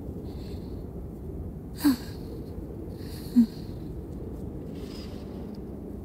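A woman's soft breathing close to the microphone: several airy breaths over a steady low rumble. Two brief low blips, about two seconds in and again a second and a half later, are the loudest sounds.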